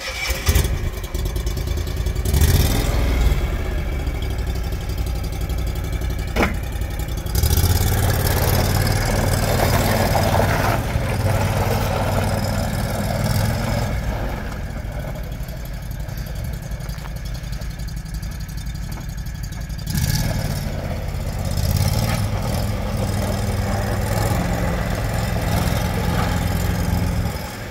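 Argo Avenger 800 8x8 ATV's V-twin engine running as the machine is driven, revving up and easing off; it surges about two seconds in, again about seven seconds in and once more about twenty seconds in. A single sharp click sounds about six seconds in.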